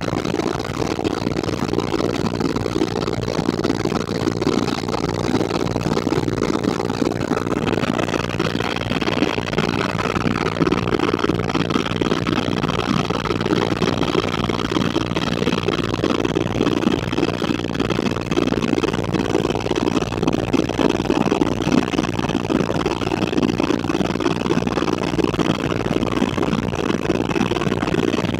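Helicopter in flight: its engine and rotors make a steady, even drone, heard from on board. A fainter high whine joins about eight seconds in and holds steady.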